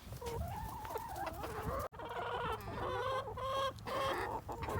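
A flock of backyard chickens clucking and calling, many short overlapping calls at once. The sound cuts out for an instant about two seconds in.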